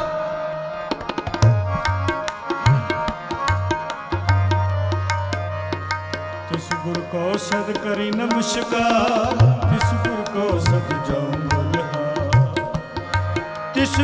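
Instrumental interlude of Sikh shabad kirtan: tabla played in a quick, steady rhythm, the bass drum giving low, ringing booms, over sustained harmonium tones.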